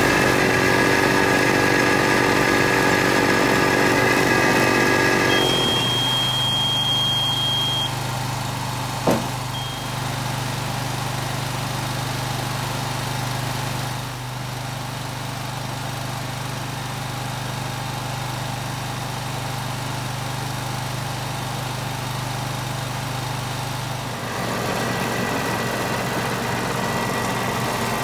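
Husqvarna Rider 419TxS AWD ride-on's engine running steadily. About five seconds in it drops to a lower, quieter note, with a brief high tone and then a sharp click around nine seconds in. Near the end it picks up to a fuller note again.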